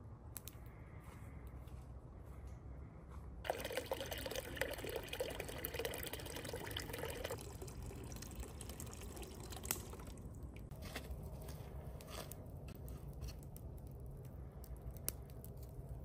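Water being poured for about four seconds, a few seconds in, followed by faint drips and small clicks.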